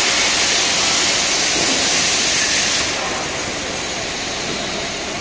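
Steady hiss of purge gas streaming from a hand-held nozzle inside a stainless steel shell, shielding the back of the TIG weld seam from oxidation. The hiss drops a little in level about three seconds in.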